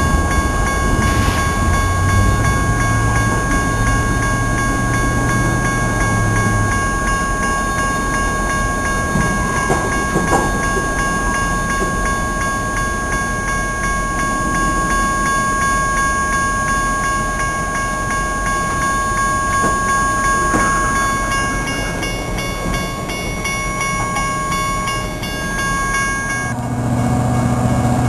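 Diesel locomotives (a GP39-2 and a GP38-2) running slowly through a street grade crossing, their engines a heavy low rumble. Over it the crossing warning bell rings steadily and cuts off suddenly about a second and a half before the end, when the engine rumble swells again as the second locomotive comes alongside.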